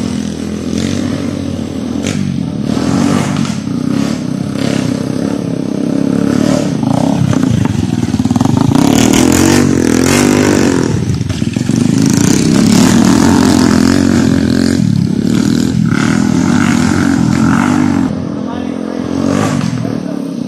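Skygo 150 motocross bike's engine revving on a dirt track, getting louder about eight seconds in, its pitch sweeping up and down as it passes close, then running hard for several seconds before easing off near the end.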